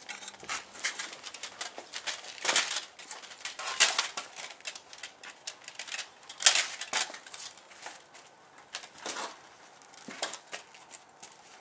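Pieces of medieval armour clinking and rattling as they are handled and taken off: irregular metal clicks and taps, with a couple of sharper knocks.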